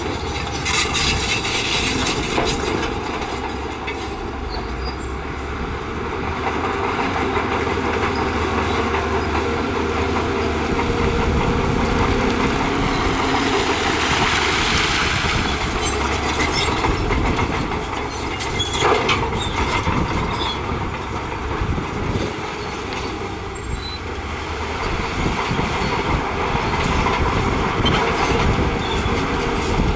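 Shantui crawler bulldozer working in rock: its diesel engine runs under load while the steel tracks clank and rattle continuously and rock and soil grind under the blade. One sharper knock stands out a little past halfway.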